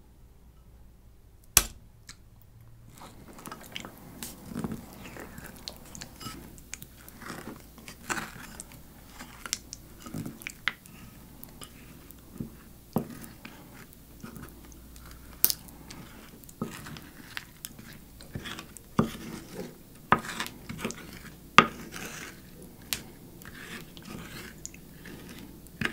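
Spoon clinking and scraping in a ceramic bowl, stirring and breaking up comb honey in plain yogurt: a sharp click about a second and a half in, then irregular taps and scrapes.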